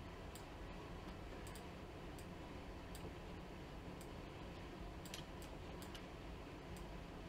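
About ten faint computer mouse clicks as curve nodes are selected and dragged: scattered single clicks, then a quick run of several about five seconds in, over a low steady hum.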